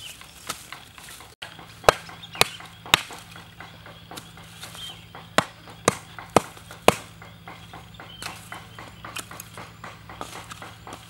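Lump charcoal being chopped and broken up in a metal bucket stove: sharp knocks about twice a second, three a couple of seconds in, then four more around the middle.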